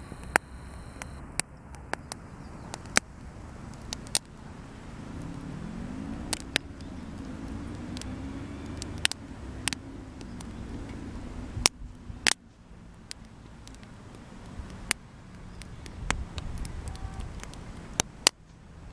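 Small wood campfire crackling, with irregular sharp pops and snaps. Under it runs a low rumble of traffic, and a distant engine drone wavers in pitch for several seconds midway.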